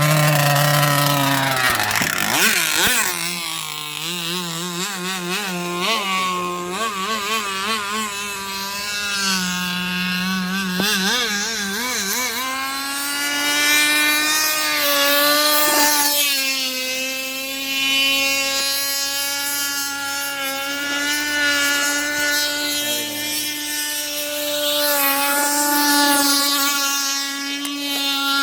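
Small petrol engine from a grass cutter, driving a homemade remote-controlled boat. It runs with its pitch wavering up and down for about the first twelve seconds, then holds a steady, higher note.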